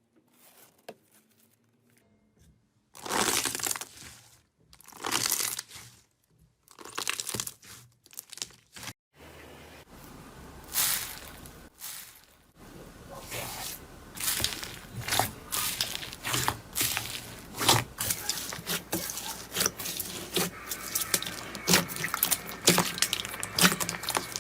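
Slime being pressed and worked by hand: after a quiet start, three separate noisy presses about a second each, then a long run of rapid crackling and popping clicks.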